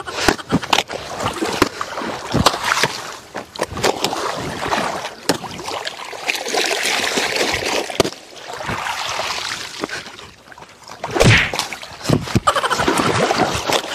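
Wet clothes being beaten by hand against washing stones at the water's edge: repeated sharp slaps at irregular intervals, with water splashing between them.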